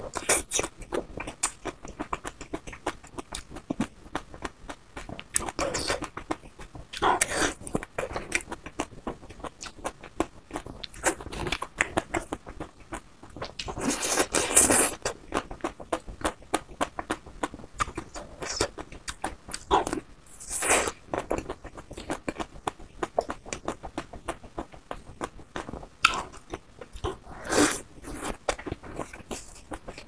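Close-miked chewing of a chocolate-coated ice cream bar: a steady fine crackle of the hard chocolate shell breaking between the teeth, with louder crunches every few seconds, the loudest about halfway through.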